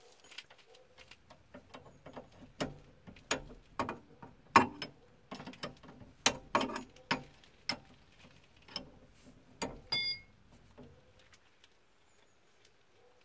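Irregular metallic clicks and knocks of hand and spanner work on a car's steering tie rod, as the tie rod end is being taken apart. A short metallic ring about ten seconds in.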